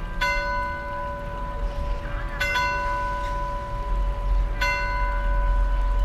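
A bell tolling, struck three times about two seconds apart, each strike ringing on into the next, over a steady low rumble.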